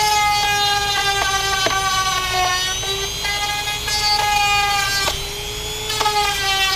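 Handheld rotary tool cutting a rectangular opening in a plastic fender panel. It gives a steady high whine that sags a little in pitch as the bit bites, with several sharp ticks as the bit catches the plastic.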